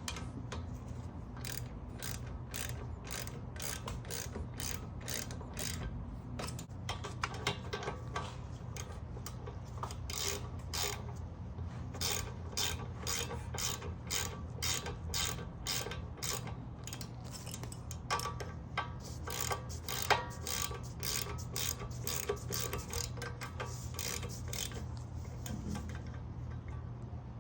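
Hand ratchet wrench clicking in irregular runs of quick strokes, tightening the rear brake caliper bolts.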